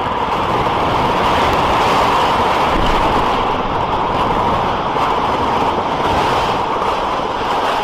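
Dense, steady wash of electronic noise, a grainy hiss loudest in the middle range, without a clear beat or melody, from an experimental electronica track. It swells a little at the start.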